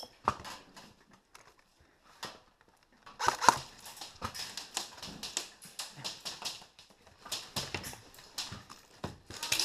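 Footsteps crunching on rubble and debris with gear rattling as a player hurries across a derelict concrete floor. The clicks are sparse at first and come thick and fast from about three seconds in, with one sharp knock, the loudest sound.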